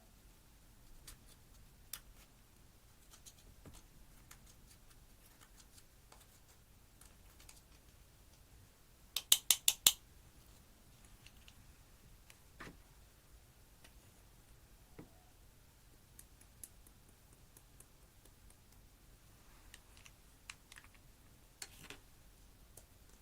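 Slime being handled, giving scattered soft clicks and pops, with a quick run of about five loud, sharp clicks about nine seconds in.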